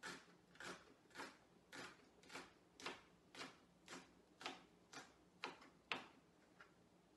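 Kitchen knife chopping bok choy on a wooden cutting board: steady, evenly spaced chops about two a second, about a dozen in all, stopping about six seconds in.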